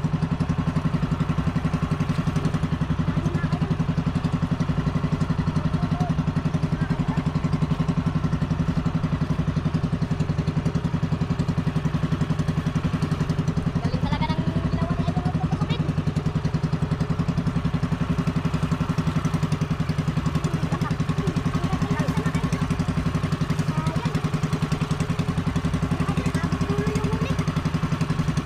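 Outrigger boat's inboard engine running steadily at constant speed under way, a fast even putter.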